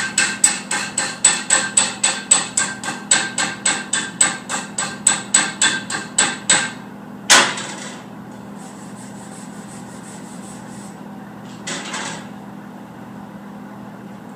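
Chipping hammer rapidly rapping slag off a fresh 7018 stick weld bead on steel, about four or five ringing strikes a second for six seconds, then one harder single strike. A steady hum from the welder runs underneath, with a brief scrape near the end.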